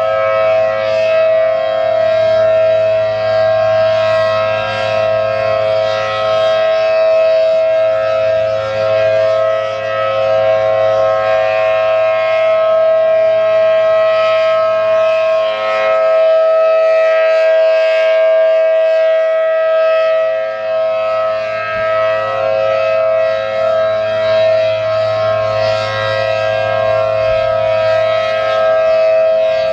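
ACA Allertor 125 rotating electromechanical siren with a 10/12-port dual-tone rotor, sounding a steady alert: a loud, held two-note chord at constant pitch. Its loudness swells and dips gently as the horn turns.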